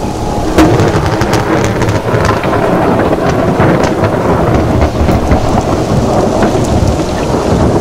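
Heavy rain pattering steadily with many sharp drop ticks over a continuous low thunder rumble, with a louder hit just over half a second in.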